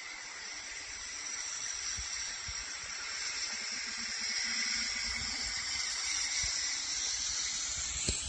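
Steady hiss of noise with no chime tones, and a single click near the end.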